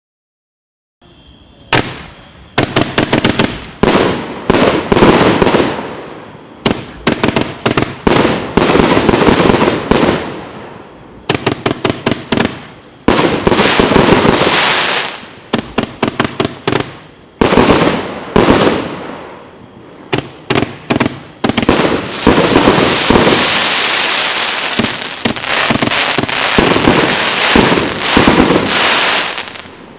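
Hallmark 'Night at the Coliseum' 49-shot fireworks cake firing, starting about a second in. Rapid volleys of sharp shots and bursts come with short pauses between them, then run together into a dense, near-continuous barrage in the last third.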